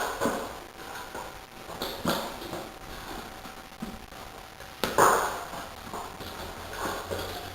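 Tools knocking and clinking against the wheel during a rear tyre change: irregular taps, with one loud knock about five seconds in.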